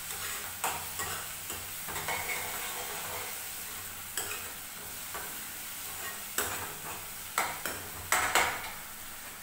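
Metal ladle stirring and scraping chopped onion frying in oil in a metal pan on a gas burner. Under a steady sizzle the ladle clicks against the pan now and then, with several clicks close together near the end.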